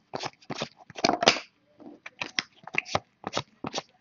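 A stack of glossy 2015 Platinum football trading cards being flipped through by hand, each card slid off the front of the pile to the back with a short papery snap, about three a second. The loudest is a longer swish about a second in.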